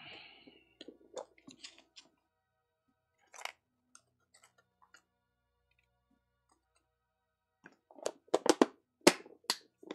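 Scattered clicks and rustles of miniature model pine trees being picked through and handled, with a cluster of louder, sharp clatters and knocks near the end.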